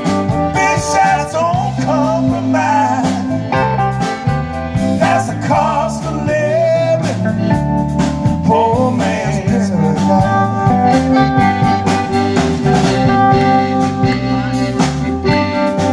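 Live blues band playing an instrumental break: electric guitar lead over a drum kit and bass, with accordion.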